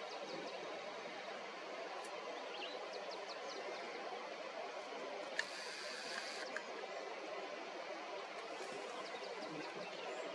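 Morning bush ambience: faint, scattered bird chirps over a steady background hiss, with a sharp click and a short buzzing burst a little past the middle.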